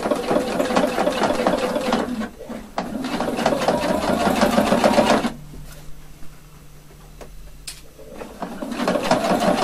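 Electronic domestic sewing machine stitching fast, top stitching along a shirt cuff. It runs in spells: a short stop about two seconds in, then a longer pause with a single click about halfway through, and it starts up again near the end.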